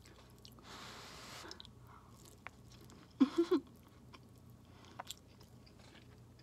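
A person eating a forkful of instant fried noodles, with a breathy rush of air about a second in. Around the middle come three short, loud hummed sounds from the mouth as the bite goes in, then soft chewing with small mouth clicks.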